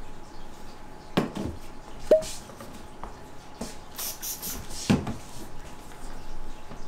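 Objects being handled and set down during bar prep work: a few sharp knocks, one of them a short ringing clink of glass or metal about two seconds in, and a brief hiss a little after midway, over a faint steady hum.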